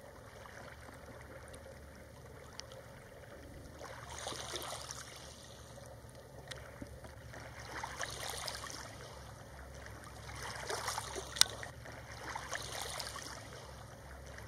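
Gentle water lapping and trickling around a swimming common loon, swelling about three times, with a few small sharp ticks, the loudest about two-thirds of the way through.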